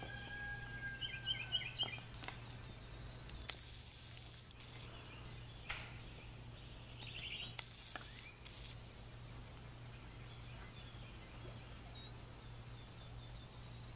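Faint outdoor ambience with small birds chirping: a held whistle-like note and a quick run of chirps in the first two seconds, another short chirp cluster about seven seconds in. A few sharp clicks are scattered through, over a steady low hum.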